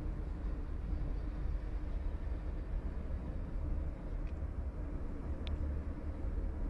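Steady low rumble of engine and tyre noise inside a car's cabin while driving, with a couple of faint clicks about four and five and a half seconds in.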